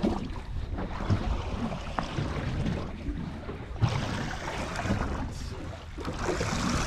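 Wind buffeting the microphone over the sea and the boat, with low rumbling and a few light knocks on deck.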